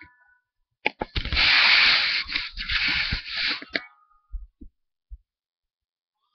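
Handling noise on the webcam's microphone as the camera is moved and turned: a loud scraping rush for about three seconds, with clicks at its start and end and a few soft knocks afterwards.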